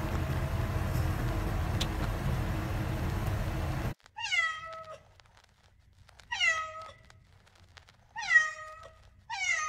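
A steady low rumble for about four seconds cuts off abruptly. Then a domestic cat meows three times, about two seconds apart, each call falling in pitch, and a fourth meow begins at the very end.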